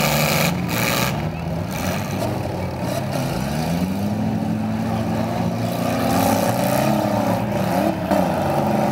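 Compact demolition-derby cars' engines revving hard and falling back, their pitch rising and dropping. A few sharp bangs come near the start and again near the end.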